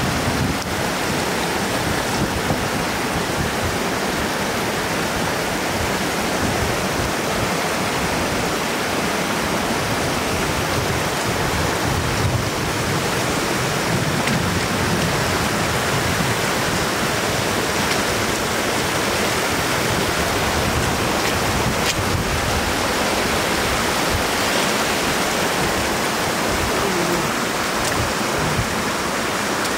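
Floodwater rushing steadily over the edge of a road, a continuous even hiss of running and splashing water.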